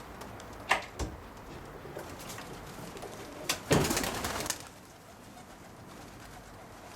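Roller pigeons cooing, with two sharp knocks about a second in and a louder clatter about three and a half seconds in that lasts about a second.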